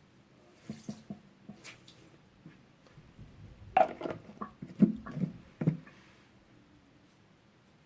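Quiet handling sounds as a wet beauty blender sponge is squeezed: soft squishes and light knocks, clustered mostly between about four and six seconds in.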